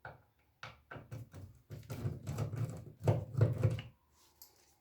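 Screwdriver backing out the screws that hold a receiver's power transformer to its metal chassis: a quick run of clicks, ticks and scraping metal.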